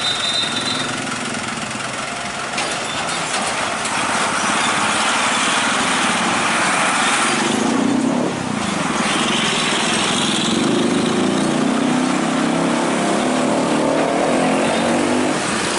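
Road traffic with heavy trucks: diesel engines running and tyres on the road as vehicles pass close by, one going past about halfway through.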